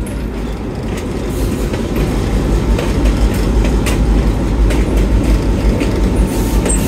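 Excursion train rolling along the track: a steady low rumble with irregular sharp clicks as the wheels cross rail joints.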